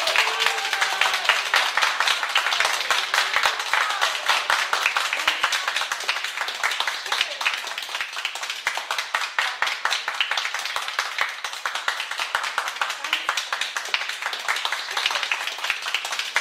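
An audience applauding: many hands clapping in a steady patter, loudest at the start, easing off in the middle and picking up again near the end.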